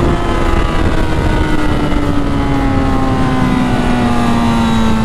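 Honda CB1000R's inline-four engine running at road speed, its pitch falling slowly and steadily, over heavy wind rush on the microphone.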